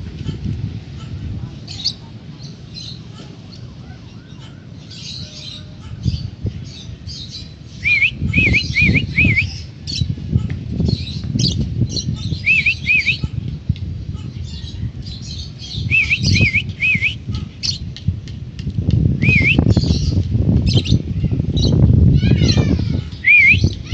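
African lovebirds chirping and squawking, with short runs of two to four quick shrill chirps repeated every few seconds, over a low rumble.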